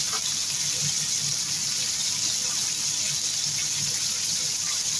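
Chicken pieces and sliced onions sizzling in oil and their own juices in a pan, a steady, even hiss.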